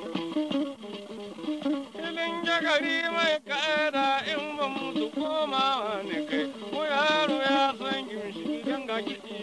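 Plucked long-necked lute playing a repeating figure, joined about two seconds in by a voice singing long, ornamented lines with heavy vibrato.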